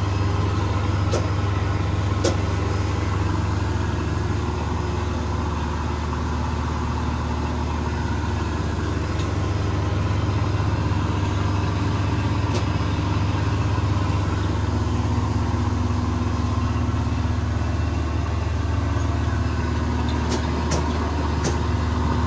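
Amazon riverboat's diesel engine running with a steady low drone, heard from on deck, over an even hiss of wind and water. A few faint clicks come through now and then.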